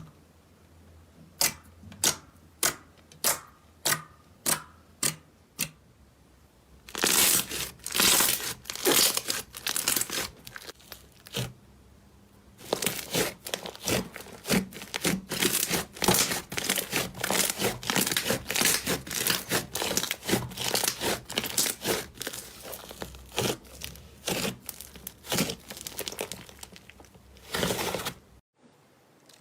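Slime being worked close to the microphone: first a string of about nine sharp pops roughly half a second apart, then, from about seven seconds in, dense crackling and crunching as it is squeezed and pressed, stopping just before the end.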